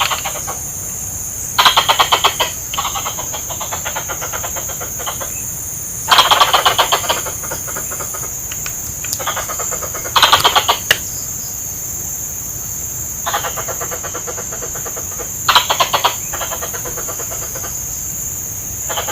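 Adult plantain squirrel (coconut squirrel) calling: loud bursts of rapid chattering chips every four to five seconds, four times, each tailing off into softer chatter.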